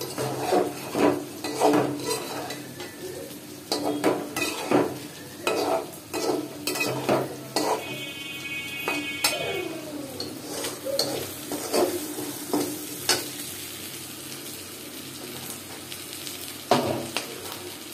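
A metal spatula scrapes and knocks against a cooking pot in irregular strokes as it stirs food frying and sizzling in oil.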